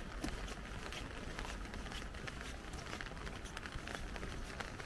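Rain falling on an umbrella: many irregular taps of drops hitting the canopy over a steady hiss of rainfall.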